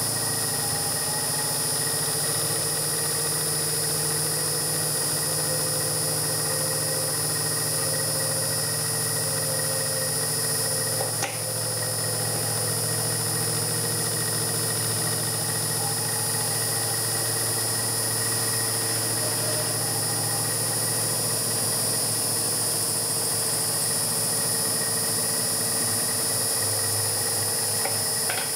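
Homemade CNC milling machine's spindle running while an end mill cuts the profile of a cam into a round metal bar: a steady high whine over continuous cutting noise.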